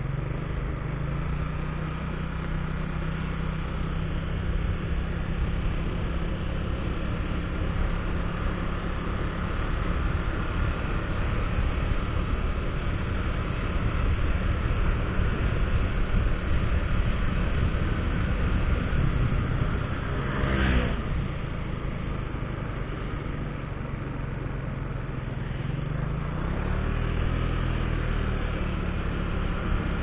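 Motorcycle engine running while riding through town traffic, with a steady rush of wind noise. The engine pitch rises as it accelerates about a second in and again near the end, and a short rising whine comes about two-thirds of the way through.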